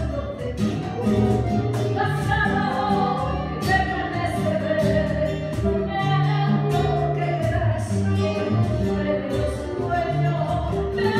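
Live Argentine tango music: acoustic guitar plucking under a singing voice.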